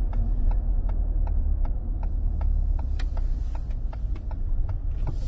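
Car cabin rumble while driving: steady low road and engine noise, with a light regular ticking about three times a second.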